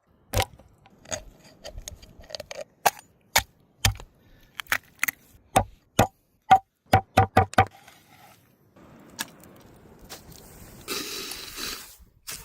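A run of sharp, irregular knocks or chopping strikes, some with a short hollow ring, followed near the end by a rush of hissing noise.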